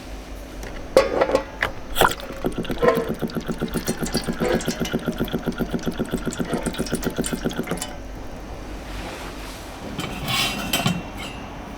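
Camp cooking utensils in use: a few clicks and knocks, then a fast, even rhythmic scraping of about five strokes a second for around five seconds, which stops abruptly.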